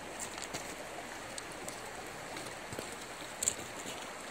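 Steady rush of a gravel-bed river flowing fast, with a few faint clicks, the sharpest about three and a half seconds in.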